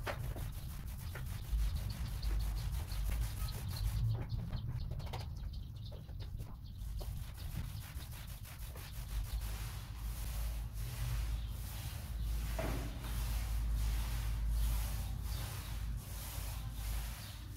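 Paint roller on an extension pole being rolled up and down a wall, giving the first coat of white paint. It makes repeated rubbing strokes, about two a second in the second half, over a steady low rumble.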